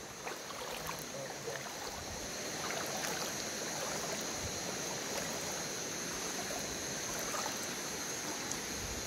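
Shallow river water running steadily over rocks, with a steady high-pitched trill of night insects above it.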